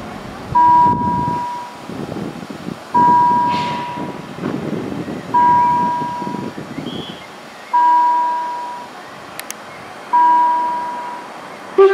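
Level-crossing warning signal sounding a single chime-like tone about every two and a half seconds, each tone starting sharply and fading, five times. The rumble of road traffic runs underneath for the first several seconds.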